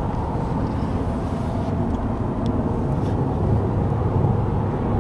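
Steady low engine and road rumble heard from inside the cabin of a moving vehicle.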